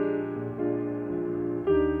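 Background piano music: held chords that change every second or so.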